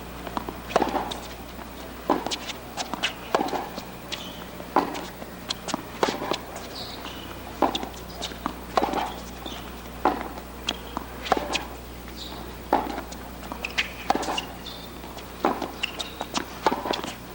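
Tennis balls struck with a racket from the baseline and bouncing on a hard court: a sharp pop every second or so, in a steady rally rhythm.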